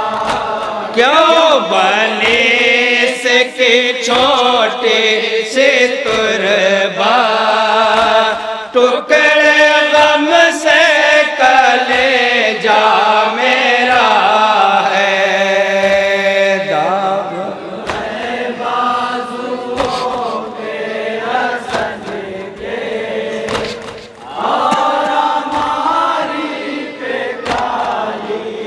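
A group of men chanting a noha (Shia lament) in unison into microphones, the lead voices carrying a slow, wavering melody with the others joining. Short sharp slaps from mourners beating their chests cut through the singing here and there.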